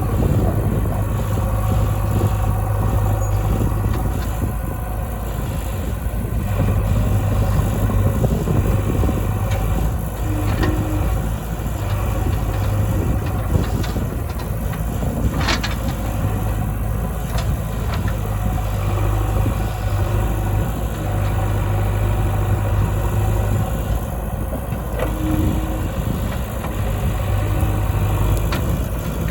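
Heavy diesel engine running steadily with a low drone while a backhoe loader loads mud into a truck, with a few brief knocks, the clearest about halfway through.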